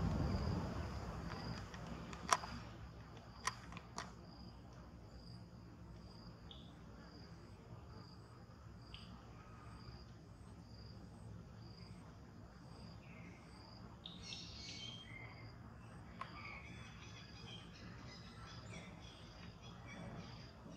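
Insects chirping in a steady high pulse, about two a second, over a low hum. Three sharp clicks come a couple of seconds in, and a few short high chirps come around the middle.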